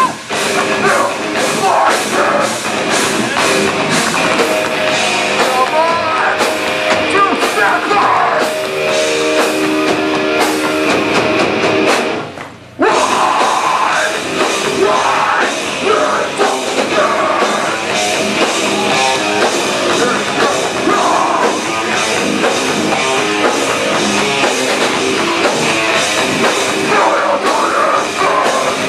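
Live rock band playing loud heavy rock with drums and singing. The music cuts out for a moment about twelve seconds in, then the band comes straight back in.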